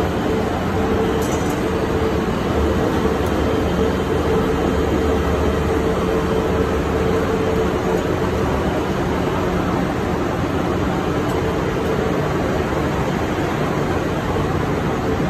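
Ship's engine-room machinery running: a loud, steady drone with a humming tone through it that fades out about halfway through.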